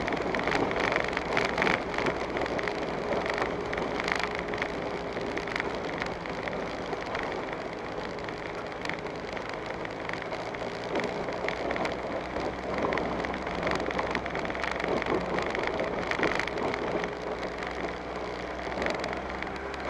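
A vehicle driving slowly over a rough dirt track, heard from a dashboard camera inside the cab. A low engine note runs under a continuous clatter of small rattles and knocks from the bumpy surface.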